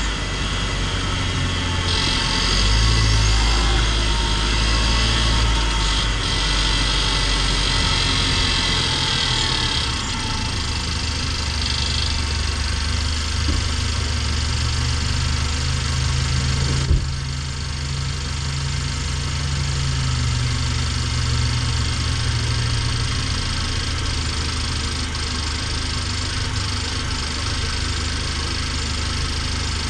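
Cabin sound of an LDV G10 van's turbocharged petrol engine on the move: a steady low drone with a thin, high whistle running over it, the noise the owner finds annoying. A brighter hiss is stronger for the first ten seconds or so, and there is a single short knock about seventeen seconds in.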